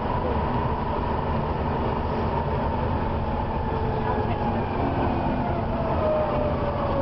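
Volvo B7TL bus's diesel engine running under way with a steady rumble, over which a thin high squeal sounds and then falls slowly in pitch near the end. The squeal is taken for the fan belt slipping.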